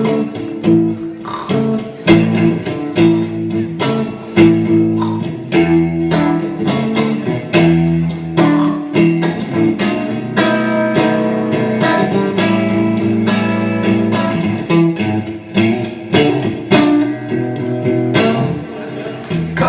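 Guitar played instrumentally in a blues style: quick plucked notes and chords over a running low bass line.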